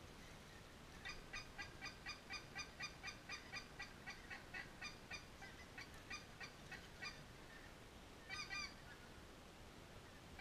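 Geese honking: a quick run of short, high calls, about four a second, for some six seconds, then a brief burst of calls again near the end.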